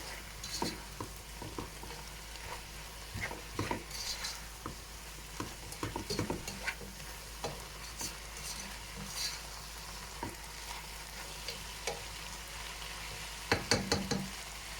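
Meat and boiled peas with spices being stirred in a pot, the utensil scraping and clicking against the pot now and then over a steady faint sizzle of frying.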